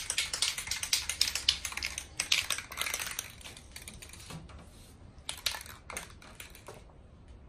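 Aerosol can of frosted-glass spray finish being shaken, its mixing ball rattling in fast clicks for about four seconds, then again for a short spell near the end, mixing the paint before spraying.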